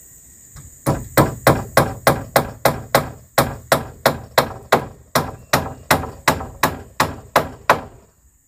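A tool striking wood in a fast, even series of about 25 blows, three or four a second, starting about a second in.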